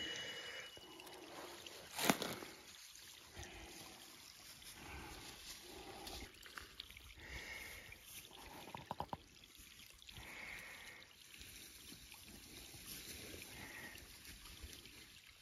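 Faint outdoor ambience with a soft steady trickle like running water and a few short high calls. A sharp knock comes about two seconds in, and a quick run of clicks about nine seconds in.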